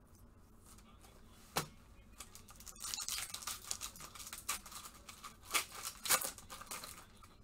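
A 2023 Panini football card pack's wrapper being torn open and crinkled in gloved hands. A single sharp tap comes about a second and a half in, then a dense run of crackling and tearing from about three seconds on.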